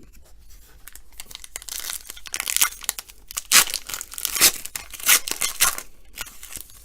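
A sports card pack's wrapper being torn open and crinkled by hand, a run of crackling rips that is loudest in the middle.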